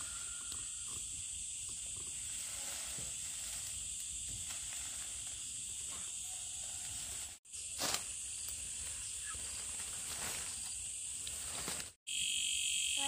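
Steady high-pitched chorus of insects over a low outdoor background hum, with a couple of faint knocks. The sound drops out for an instant twice, once about seven seconds in and once near the end.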